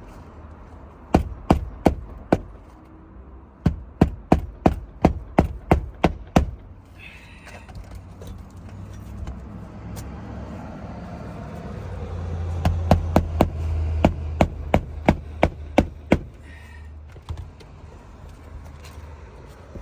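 Hammer blows driving roofing nails into an asphalt shingle, in quick runs of strikes separated by pauses. A low rumble sits under the last run.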